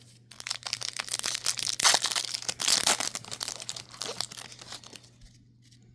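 Plastic wrapper of a 2024 Bowman Baseball trading-card pack being torn open and crinkled by hand: dense crackling for about four seconds that dies away near the end.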